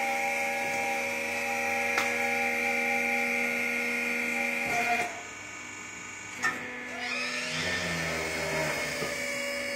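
A machine's steady whine with a hum, cutting out about five seconds in. A single sharp clack follows, then a lower hum.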